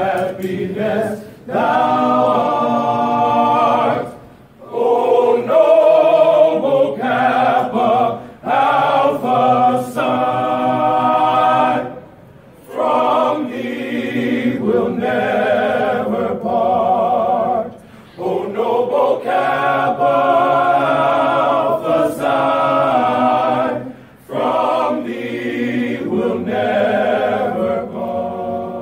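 Men's a cappella chorus singing a slow fraternity hymn in unison and harmony, long held chords with vibrato, in phrases a few seconds long separated by brief pauses for breath.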